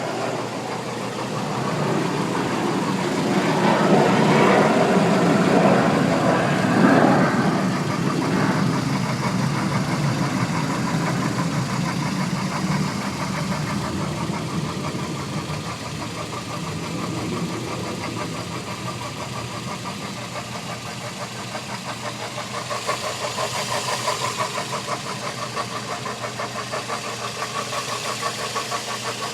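Toyota Echo's 1.3-litre VVT-i four-cylinder engine running, swelling louder for a few seconds near the start and then settling back. In the second half there is a fast, even pulsing knock: the unidentified noise the owner is trying to trace.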